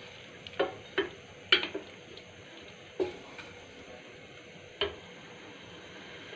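Wooden spoon stirring diced watermelon rind in sugar syrup in a steel saucepan, knocking against the pan about six times at irregular intervals, the loudest about a second and a half in, over a faint steady hiss.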